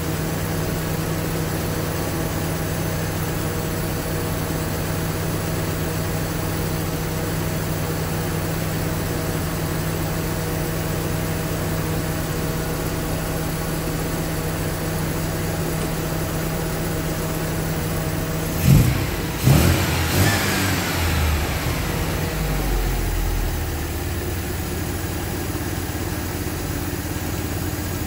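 1978 MGB's 1.8-litre B-series four-cylinder engine idling steadily on its twin SU carburettors during mixture tuning. About two-thirds of the way through it is revved sharply a few times, the revs falling away over a few seconds before it settles back to a steady idle.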